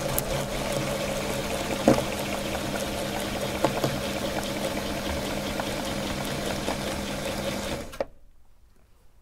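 Meat grinder running steadily with a constant hum as it forces ice cream through its cutting plate, then stopping abruptly about eight seconds in.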